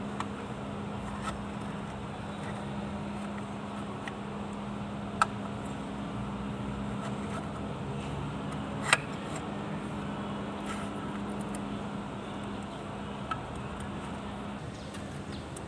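Propeller shaft being worked by hand at its housing: a few sharp metal clicks and knocks, the two loudest about five and nine seconds in, over a steady low hum.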